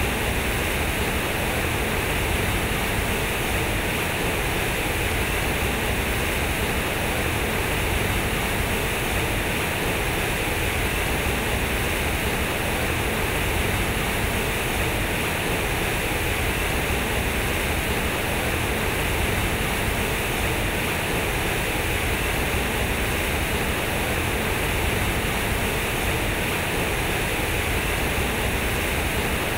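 Concrete fountain: heavy streams of water pouring from square concrete outlets and splashing into its pool, a steady, unbroken rush of water.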